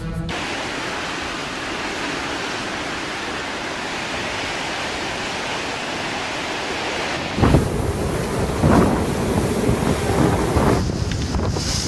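Steady rushing noise of storm wind and water spray. About seven seconds in it turns louder and uneven, with gusts of wind buffeting the microphone over the wash of waves.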